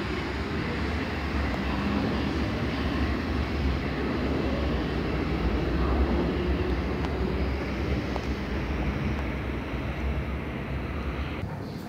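Munich U-Bahn train running out of an underground station: a steady low rumble echoing off the platform walls, building to a peak midway and easing off near the end.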